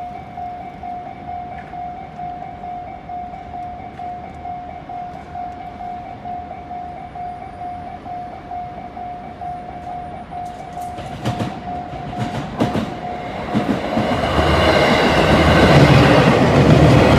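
Japanese level-crossing warning bell ringing its rapidly repeated single tone. Around eleven seconds in come a few sharp clacks, and then the Haruka limited express train gets loud as it passes over the crossing.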